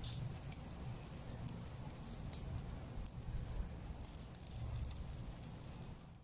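Meat grilling over charcoal in wire grill baskets: a faint sizzle with a few scattered pops and crackles, over a low rumble.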